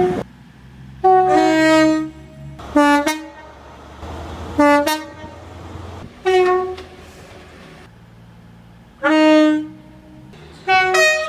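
A run of about six short train horn blasts of different pitches, some stepping from one note to another as a two-tone horn does, with a low steady hum between them.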